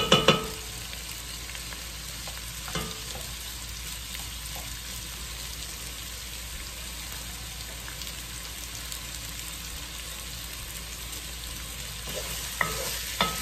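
Diced potatoes and carrots sizzling steadily as they sauté in a pot on high heat. A wooden spoon knocks against the pot a few times at the start, and stirring starts up again near the end.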